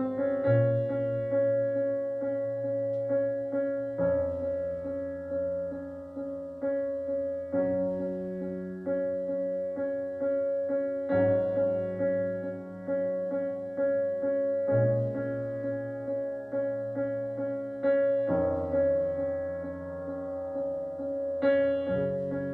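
Keyboard playing an instrumental passage: a repeated high note runs over chords that change about every three and a half seconds, each change starting on a low bass note.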